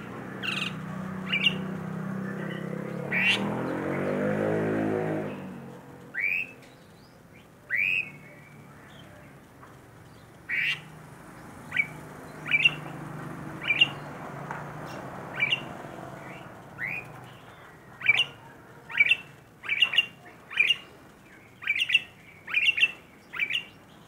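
Young Asian pied starling (jalak suren) calling in its cage: a string of short, sharp upward-gliding squawks, spaced out at first and coming about two a second near the end.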